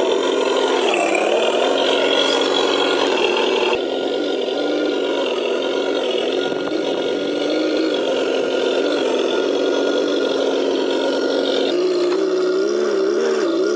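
Electronic sound unit of a 1:10 Tamiya Unimog 425 RC truck playing a simulated diesel engine as the truck crawls. The note changes abruptly about four seconds in and again near the end, where the revs rise and fall.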